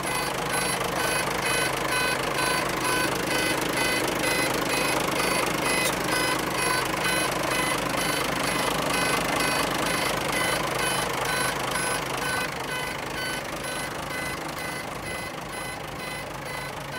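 Mitsubishi Fuso Fighter truck's 6D14 six-cylinder diesel engine running steadily, with an electronic warning beeper sounding in even, rapid repeats throughout.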